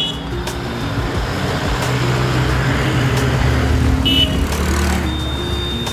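Road traffic: a goods truck's engine and tyres swell as it passes close by, then ease off as a motorcycle comes by. A short high beep sounds about four seconds in.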